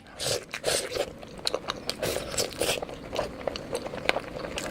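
Close-miked eating sounds: a person chewing and biting a mouthful of fish curry and rice, an irregular run of short wet clicks.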